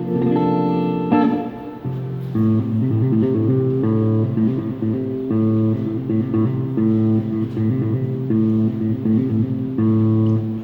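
Amplified guitar played in a sound check: a couple of held chords, then a short riff repeated over and over, cutting off sharply at the end.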